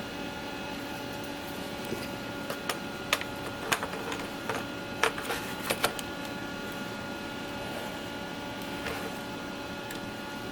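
Hard plastic clicks and knocks as a Ridgid cordless drill battery pack is handled and seated on its charger: a scatter of sharp clicks spread over a few seconds. Under them runs a steady electrical hum with a faint high whine.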